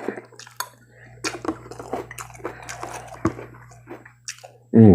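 Spoon clinking and scraping against a cereal bowl, with wet slurping of milk while eating cereal. Near the end comes a short, loud voiced sound that falls in pitch.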